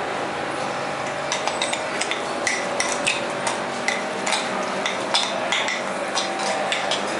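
Metal spoon clinking and scraping against a terracotta bowl while minced mutton is stirred with spices. The irregular clicks start about a second in, several a second, over a steady background hum.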